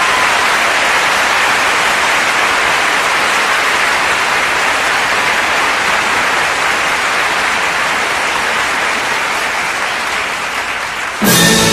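Audience applauding steadily in a theatre; near the end the orchestra comes in abruptly and starts playing.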